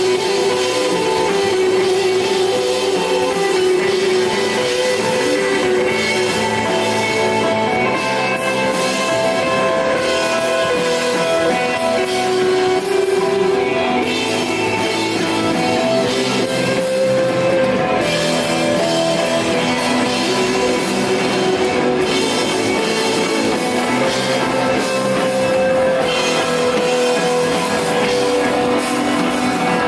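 Live rock band playing loud: electric guitar holding long sustained notes over bass and a drum kit with cymbals.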